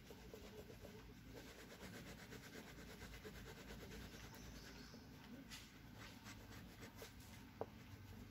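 Faint scratching of a red crayon rubbed back and forth on paper, with one small click near the end.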